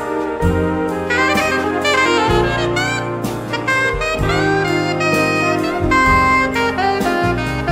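Big band jazz: a saxophone leads with bending, sliding notes over bass and drums, the horn section filling in.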